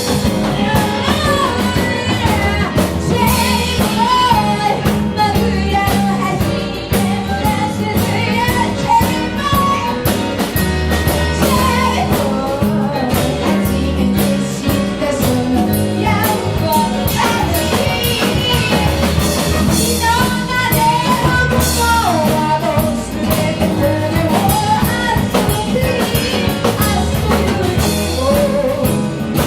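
A rock-style band piece with drum kit, bass and guitar under a wavering lead melody line.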